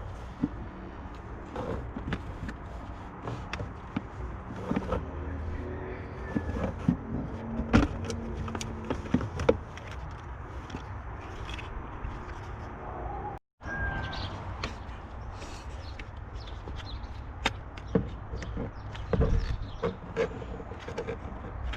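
Scattered clicks and knocks of hands handling wiring and plastic parts at a car's under-hood fuse box, over a steady low background rumble, with a brief dropout about two-thirds of the way through.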